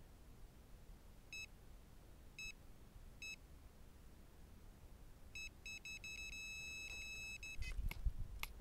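Electronic carp bite alarm sounding a take: a few single beeps a second or so apart, then faster bleeps that run together into one continuous tone as line is pulled off. Near the end come knocks and handling noise as the rod is lifted from the alarm.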